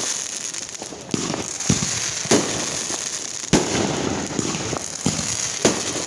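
Fireworks going off: about six sharp bangs at irregular intervals, with crackling between them.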